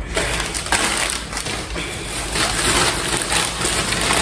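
Packaging rustling and crinkling as it is handled, a busy run of small crackles.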